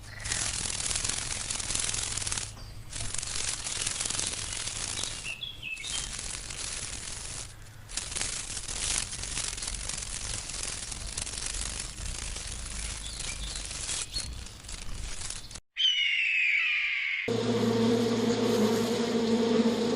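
Insects buzzing and hissing in a string of short clips that break off abruptly every few seconds. Near the end, after a brief falling chirp, a steady low buzz sets in.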